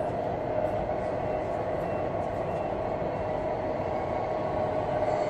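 Radio-controlled scale model trucks driving, a steady mechanical hum with a constant whine over the noise of a busy hall.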